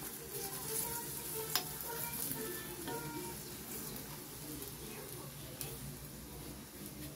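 Oil sizzling on a chapati on a hot flat griddle (tawa) as a spoon spreads the oil over it, the spoon scraping lightly across the surface. One sharp click about a second and a half in.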